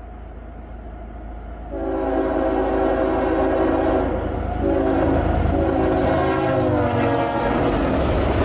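Approaching train's locomotive horn sounding a chord of several notes, starting loud about two seconds in over a rising rumble, held long and then blown again in shorter blasts, its pitch dropping near the end as the locomotive reaches the camera. The rushing rumble of the passing train takes over after the horn stops.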